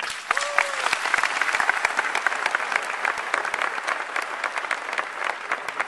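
Large audience applauding: dense clapping of many hands that starts suddenly.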